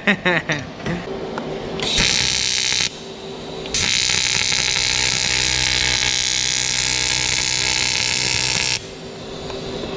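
TIG welding arc on a stainless-steel bracket, from a Boxer ALUTIG 200 AC/DC welder: a short burst of steady hissing buzz about two seconds in, then a longer steady run of about five seconds that cuts off sharply near the end. A few light knocks of metal parts being handled come at the start.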